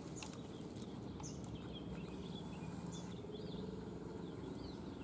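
Faint outdoor ambience: scattered short bird chirps over a low steady hum.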